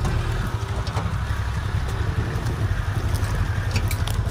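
Engine of a small off-road 4x4 running steadily as it drives over a rough dirt track, heard from inside the cab, with a few sharp rattles near the end.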